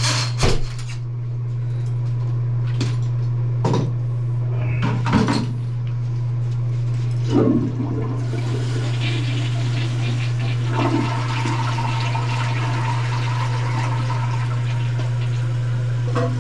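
A toilet flushing: a few knocks in the first seconds, then water rushing through the bowl from about eight seconds in, as the toilet is flushed after a clog of wipes was cleared.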